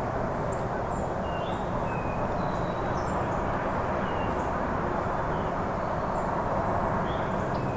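Steady low outdoor rumble, with scattered short, high bird chirps over it.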